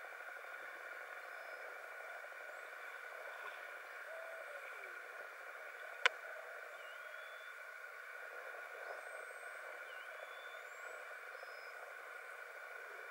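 Steady underwater hiss picked up by an underwater camera, with a few faint short whistles and one sharp click about six seconds in.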